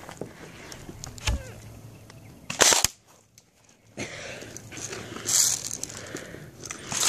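Airsoft gun firing a quick cluster of sharp shots, with a couple more pops a few seconds later.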